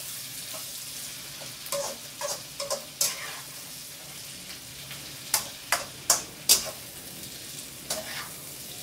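Chopped onion sizzling as it fries in a wok, stirred with a utensil that clicks and scrapes against the pan. A few clicks come about two to three seconds in, and a louder run of four knocks about five to six and a half seconds in.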